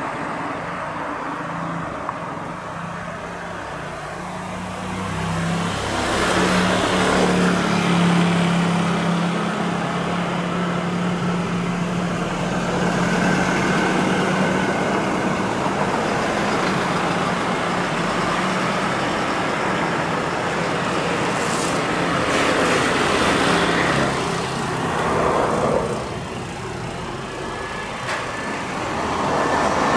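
Road traffic passing close by: vehicles swell and fade past a few seconds in and again near the end, over a steady low engine hum through the middle.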